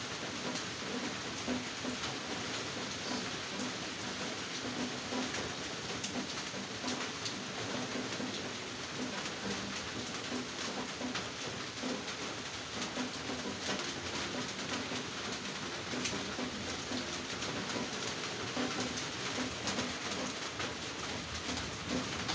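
Heavy rain falling on tree leaves and grass: a steady hiss with many individual drops ticking through it.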